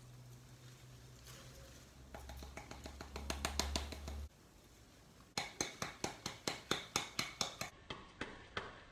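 Hands repotting a pothos in a terracotta pot: light rustling and clicks, then, after a brief pause, a run of quick, regular taps, about three a second, against the pot and soil.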